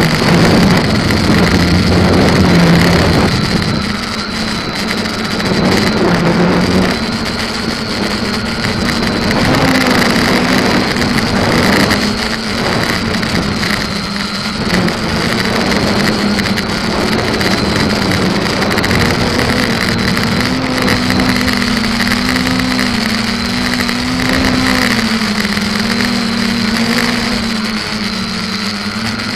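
SK450KK2 quadcopter's motors and propellers humming in flight, the pitch wavering up and down as the throttle changes.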